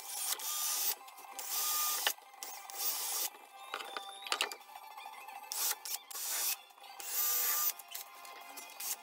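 Cordless drill spinning up in a run of short bursts, each under a second, as it bores small holes through a laminated chipboard panel.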